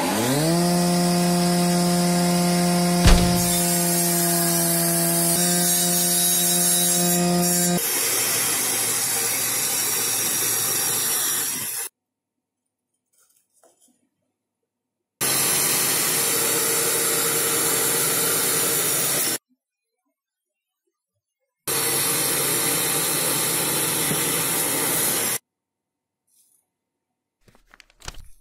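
A table saw's electric motor spins up with a rising whine that settles into a steady hum, then the blade cuts into wood for about four seconds. After a pause, a power tool works wood in two more bursts of about four seconds each.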